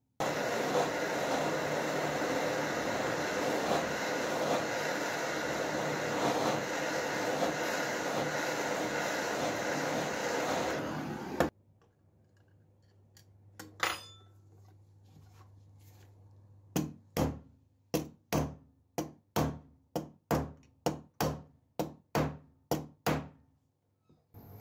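A steady loud noise for about eleven seconds cuts off abruptly. After a single metallic click, a small hammer strikes a steel rivet about fifteen times in quick succession, peening it over to fix a masonry trowel's steel blade to its tang on a steel block.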